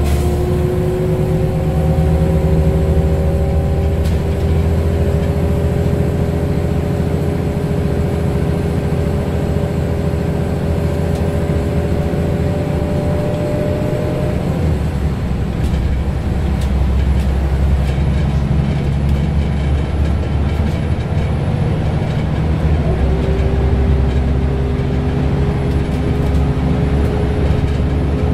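Scania L94UB city bus under way, its diesel engine droning and its ZF Ecomat automatic gearbox whining. The whine rises slowly in pitch, breaks off about halfway through, and comes back near the end, rising again.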